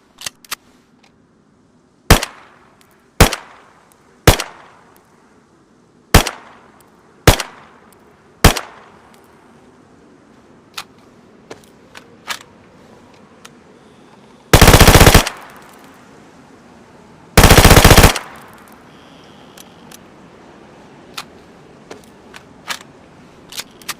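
Skorpion submachine gun firing six single shots, roughly a second apart, then two short full-automatic bursts of under a second each, a few seconds apart. Faint clicks fall between the shots.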